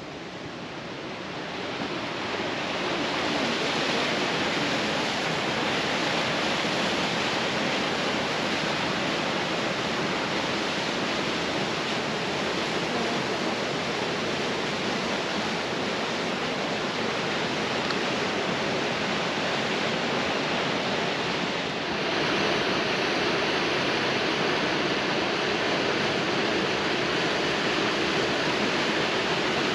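Waterfall: a steady rush of falling water, swelling over the first few seconds and then holding, with a brief dip about 22 seconds in.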